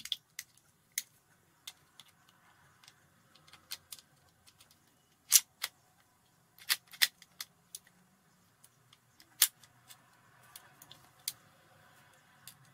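Metal parts of a Swiss Arms P1911 air pistol clicking and knocking as the slide and frame are handled and fitted together: scattered sharp clicks, the loudest about five, seven and nine seconds in.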